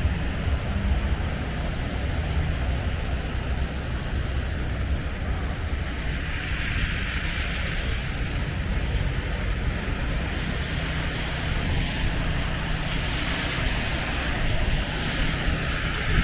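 Blizzard wind buffeting the microphone with a steady low rumble over city street noise; a hiss swells up about six seconds in and again near the end.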